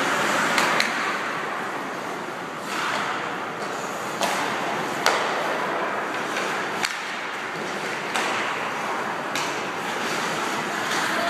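Ice hockey play: skates scraping and hissing on the ice, with several sharp clacks of sticks and puck.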